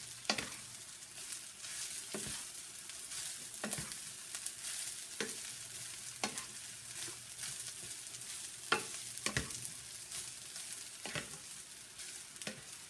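Rice stir-frying and sizzling in a nonstick sauté pan, with a steady hiss, while a plastic spatula stirs and turns it. The spatula scrapes and taps against the pan every second or two.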